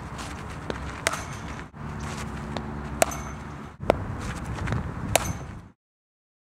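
Cricket bat striking the ball in practice nets: four sharp cracks about a second or two apart, some with a brief high ring, over steady outdoor background noise.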